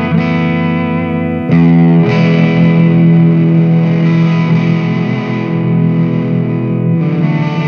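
Electric guitar played through the Ernie Ball Expression Overdrive pedal: distorted chords are let ring, with a new, louder chord about a second and a half in and another change near the end.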